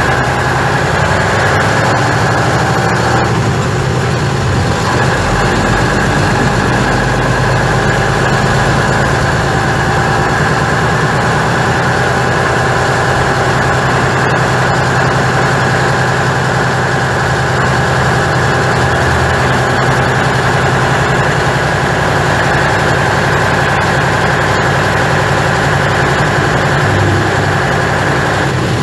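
Skoda 706RT six-cylinder diesel engine of a 1977 Jelcz 272MEX bus running steadily as the bus drives, heard from inside the cabin.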